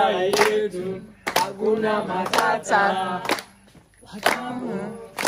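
A group of voices singing a song together while clapping hands about once a second, with a short pause in the singing near the end.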